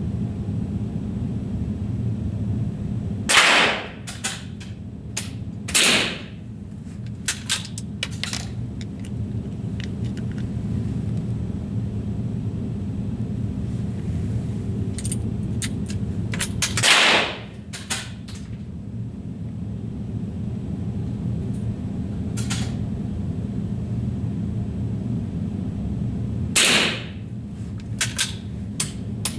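Four rifle shots, each a short sharp crack, about 3, 6, 17 and 27 seconds in, with fainter clicks between them, over a steady low hum.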